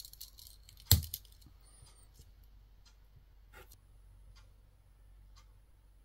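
Victorinox Huntsman Swiss Army knife's wood saw blade snapping open against its spring with one sharp click about a second in, followed by a few faint ticks of the knife being handled.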